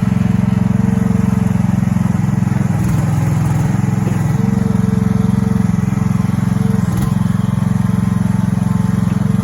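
Mini excavator's small 420 cc four-stroke gasoline engine running steadily, its note briefly changing about three seconds in, again at four seconds and near seven seconds.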